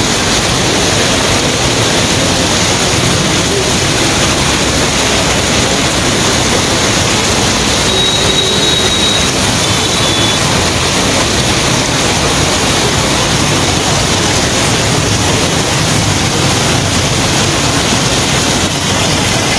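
Steady, loud rushing noise of heavy rain and floodwater, with a faint short whistle-like tone about eight seconds in.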